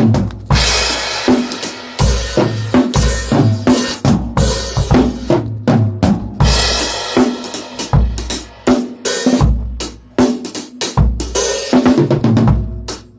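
Acoustic drum kit played as a full groove with kick, snare, toms and cymbals, with cymbal crashes about every two seconds: a drummer playing all the drums together so the sound engineer can balance the whole kit in a sound check.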